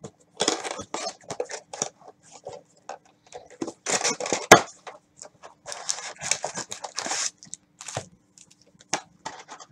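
A cardboard trading-card hobby box being torn open and its wrapped card packs pulled out: irregular tearing, crinkling and scraping, with a sharp snap about four and a half seconds in.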